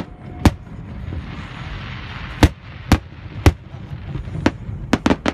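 Aerial fireworks shells bursting over a lake: about eight sharp booming reports at irregular intervals, with a quick run of them close together near the end.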